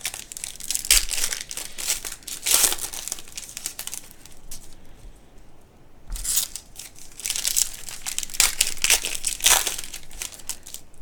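Crinkling and rustling of a trading-card pack and its cards being handled, in bursts with a quieter pause about halfway through.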